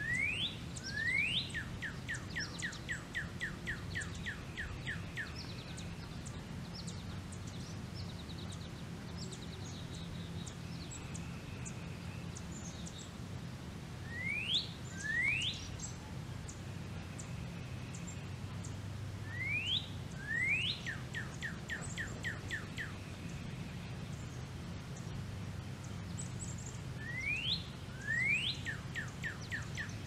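A songbird repeating the same song four times: two rising whistles, usually followed by a quick run of about ten short falling notes. Fainter chirps from other birds and a low steady hum sit underneath.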